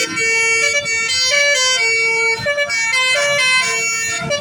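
Bus basuri horn, a multi-note musical air horn, playing a tune: a run of loud held notes stepping up and down in pitch with short breaks between them.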